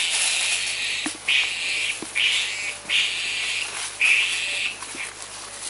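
An insect buzzing in repeated bursts, about six of them, each half a second to a second long with short gaps between.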